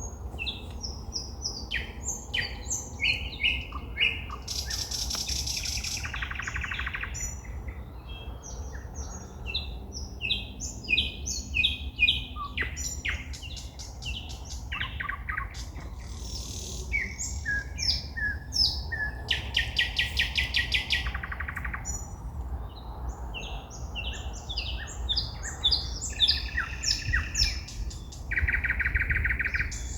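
A songbird singing at night: a fast, varied song of short whistled notes, trills and rapid rattling runs of repeated notes, over a steady low rumble.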